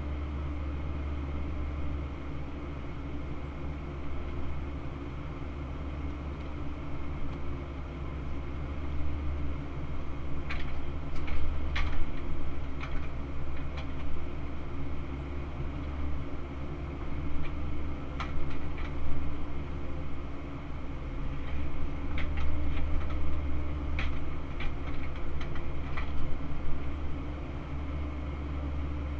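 Cat 308CR excavator's diesel engine and hydraulics running steadily, heard from inside the cab, the low hum swelling and easing as the arm works. Sharp clanks and knocks come in clusters about ten seconds in, near twenty seconds, and again a few seconds later.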